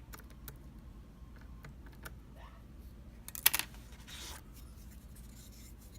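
Metal lock picks being sorted and handled, giving light irregular clicks and rattles, with a louder clatter about three and a half seconds in followed by a brief rustle.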